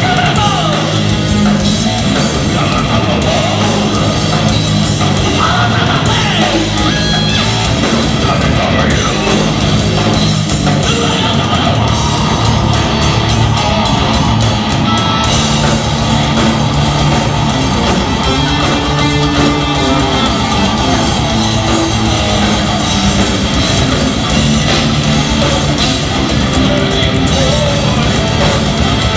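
A live progressive metal band playing loud and steady, with electric guitars and drum kit.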